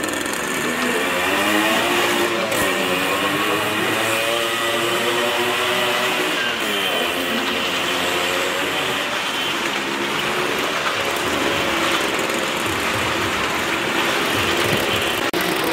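Motorcycle engines revving as riders circle the vertical wooden wall of a well-of-death drum, the engine note rising and falling over and over.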